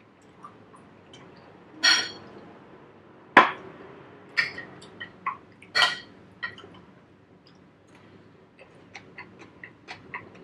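Metal spoon clinking and scraping against a ceramic plate as food is scooped up, with several sharp ringing clinks in the first six seconds. Softer small clicks of chewing near the end.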